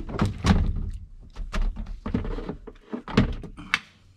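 Heavy Interstate lead-acid marine battery being handled in a boat's battery compartment: a series of dull knocks and thunks as it is lifted and set against the compartment.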